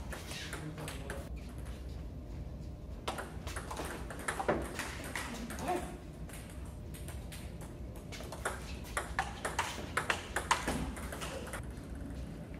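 Table tennis rally: the celluloid/plastic ball clicking off bats and the table in quick runs of hits, with short pauses between rallies.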